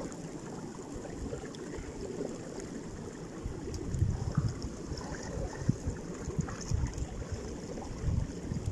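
Small forest river running steadily through the pipes under a concrete bridge, its current still strong from snowmelt. Low rumbles of wind on the microphone come and go in the second half.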